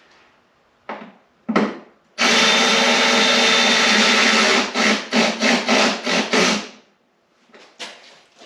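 Handheld power driver running a bolt in: two short trigger blips, a steady run of about two and a half seconds, then a string of about six quick trigger pulses.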